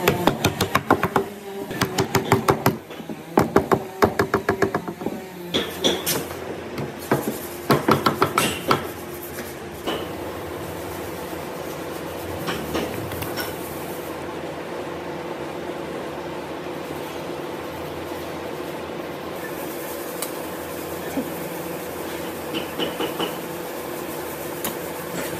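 Wooden mallet tapping thin wooden slats down into slots cut in a board. The rapid, light knocks come in flurries through the first ten seconds, then give way to a steady hum.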